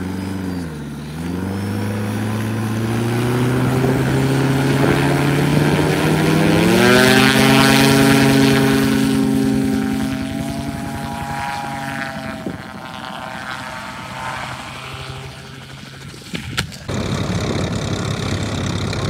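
Gyrocopter's engine and propeller running, its pitch dipping briefly and then climbing steeply to full power about six seconds in, holding, then fading away. Near the end it is cut off and replaced by a different, steady aircraft engine noise.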